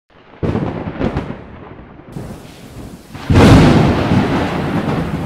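Thunderstorm: two short cracks of thunder, then a louder, longer rumble of thunder starting about three seconds in and slowly dying away, over a steady rush of rain.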